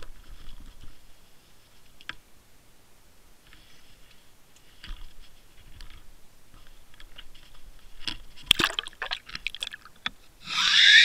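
Knocks and rubbing of a Water Wolf underwater camera being handled, then a burst of splashing and sharp knocks about eight and a half seconds in as it goes into the water. Near the end, a loud rushing noise with a whistling tone that rises and falls as the camera sinks on the line.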